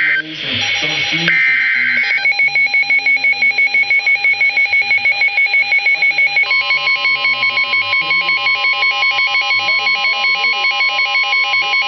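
Emergency alert tones: the last digital header burst of a weather-radio alert, then a rapid, evenly pulsing electronic alarm tone. About six and a half seconds in, a steady warning tone joins it, like the long attention tone that precedes a National Weather Service warning message.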